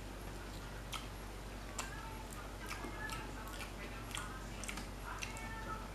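Irregular soft ticks and crackles of crispy deep-fried gourami being picked apart by hand and chewed, close to the microphone.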